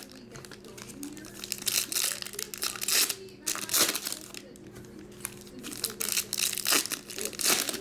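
Foil-wrapped trading card packs being torn open and their wrappers crinkled, in irregular bursts of rustling with several louder rips.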